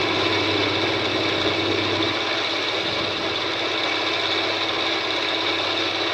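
A green grinding wheel grinding a hardened steel shaft turning on a homemade lathe: a steady, loud grinding hiss over the hum of the running motors.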